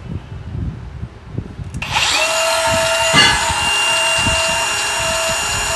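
Tools knocking and clattering, then about two seconds in an electric angle grinder spins up with a rising whine and runs steadily, grinding with a loud hiss.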